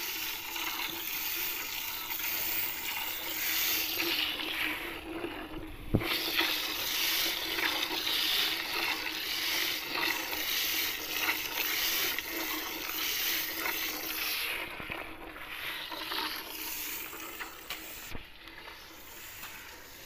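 Milk squirting in quick streams from a cow's teats into a steel bucket already holding milk, during hand milking: an even hiss of spray into liquid, softer in the last couple of seconds.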